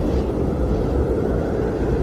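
Blizzard wind blowing steadily, a deep, even rush of noise without gusts or breaks.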